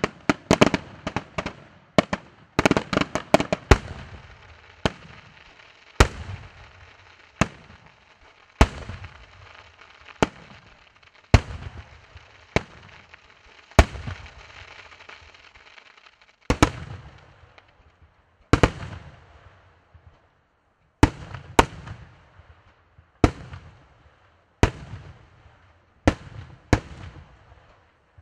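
Aerial firework shells bursting: a quick volley of bangs in the first few seconds, then single loud bursts about every one to two seconds. A crackling hiss fills the gaps through roughly the first half.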